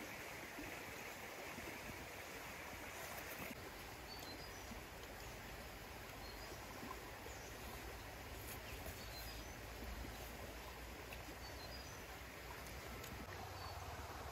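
Steady outdoor background noise, an even rushing hiss, with faint high bird chirps scattered through the middle.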